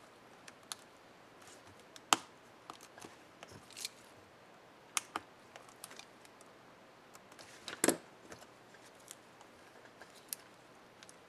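Small plastic clicks and snaps from a laptop keycap and its retainer clips being handled and pressed onto the keyboard, scattered and irregular, with two louder snaps about two seconds in and about eight seconds in.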